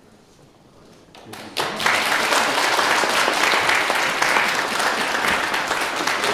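Audience applause: a few scattered claps about a second in, then the whole hall breaks into steady clapping.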